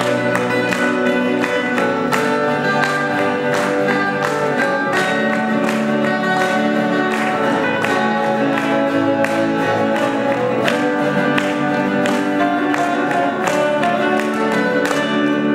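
Several steel-string acoustic guitars playing a song together, plucked notes over held chords.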